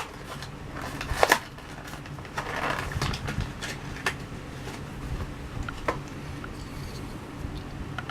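Plastic blister packaging and card crackling and clicking as a diecast toy car is worked out of its pack by hand, with irregular small clicks and a sharper crackle a little over a second in.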